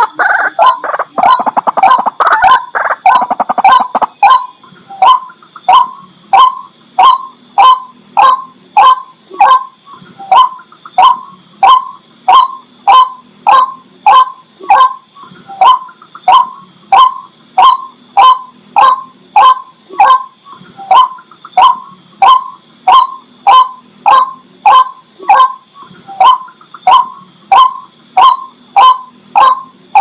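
White-breasted waterhen calling. For about the first four seconds the loud harsh calls come fast and overlap, then settle into one monotonous 'kwak' note repeated steadily, a little under two a second.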